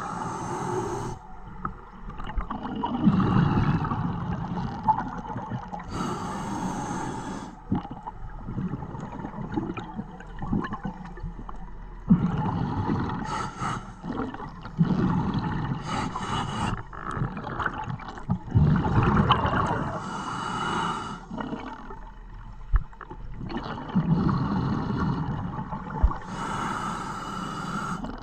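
Scuba diver breathing through a regulator underwater: repeated breaths, each a short high hiss followed by a longer low rush of exhaled bubbles, about five breaths in all.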